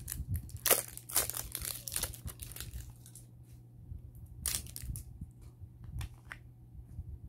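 Plastic wrapping crinkling and tearing as it is peeled off a small acrylic cosmetic cream jar. It comes in irregular bursts, busiest in the first two seconds and again about four and a half seconds in.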